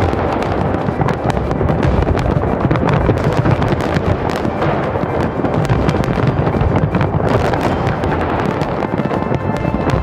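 Large aerial fireworks display: many shells bursting in quick succession, the bangs running together into a steady, dense barrage with crackling over a low rumble.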